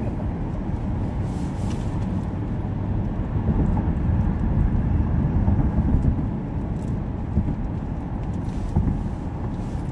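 Steady low rumble of a running vehicle, a little louder for a couple of seconds in the middle.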